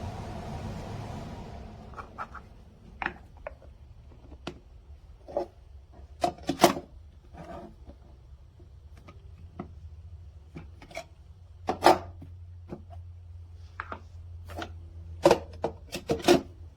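A small appliance motor's steady whir dies away about a second and a half in. Irregular sharp clicks and knocks of hard parts being handled follow, several of them loud.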